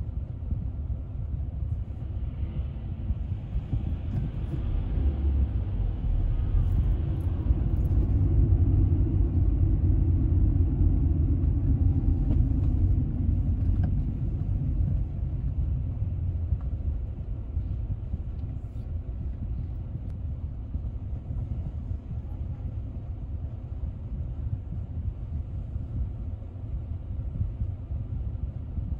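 Car driving on city streets: a steady low rumble of engine and tyres, growing louder for several seconds near the middle before easing back.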